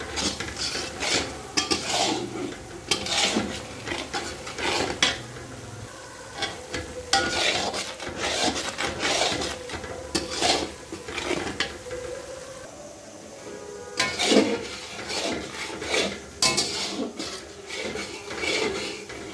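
Metal spatula stirring chopped onions frying in oil in a metal kadai: repeated irregular scrapes and clinks against the pan over the sizzle of frying, with a brief lull about two-thirds through.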